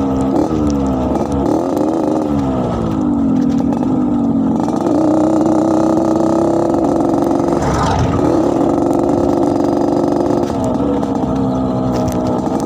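Yamaha RX-King's single-cylinder two-stroke engine revved with the throttle, its exhaust giving a raspy growl. The revs rise and fall a few times, hold steady higher for several seconds with a quick sharp blip partway through, then drop back near the end.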